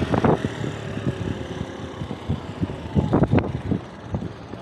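Bicycle ride on city streets: a steady low road rumble with irregular rattling knocks, the loudest cluster about three seconds in, with some wind on the microphone.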